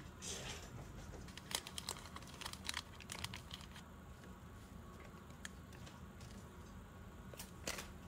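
Faint crinkling of small plastic accessory bags, with scattered light clicks as small parts such as thermal pads and rubber feet are set down on a desk mat.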